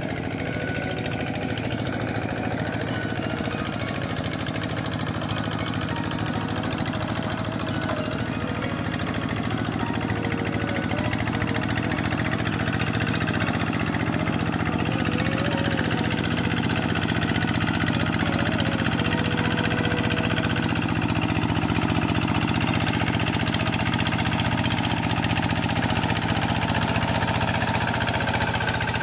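Two-wheel hand tractor's single-cylinder diesel engine running steadily as the tractor ploughs a flooded rice paddy on its steel cage wheels, growing slightly louder as it comes closer.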